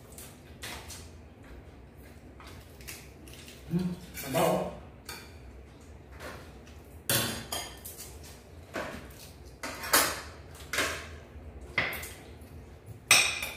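Crabs being eaten by hand: a string of separate sharp cracks and clatters of crab shell and plate, the loudest near the end.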